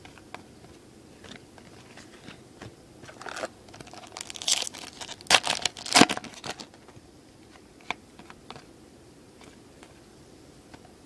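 Foil wrapper of a baseball card pack crinkling and tearing, loudest in a burst of crackling from about three to six and a half seconds in, with light clicks of cards being handled before and after.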